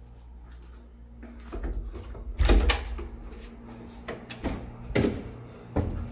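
A series of dull knocks and thumps with a low rumble under them. The loudest is a double knock a little before the middle, followed by three more single knocks spaced about half a second to a second apart.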